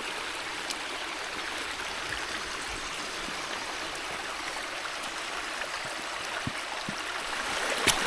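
Mountain stream running high and fast after days of heavy rain: a steady rush of flowing water, with a couple of faint knocks near the end.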